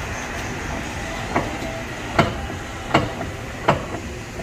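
Honda's suspension clunking with sharp metallic knocks, four of them about three-quarters of a second apart, as the car is rocked on one side. This is the noise it makes over bumps, which suggests a broken or worn suspension part.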